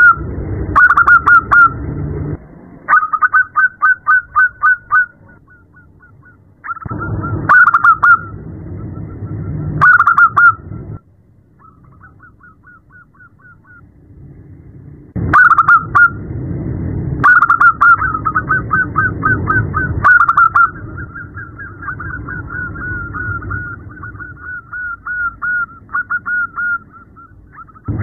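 Female zebra dove (perkutut) calling to a male: bouts of rapid, evenly repeated staccato notes, some short and some running several seconds, with brief pauses between them and a quieter, fainter bout in the middle. A low rumbling noise comes and goes underneath.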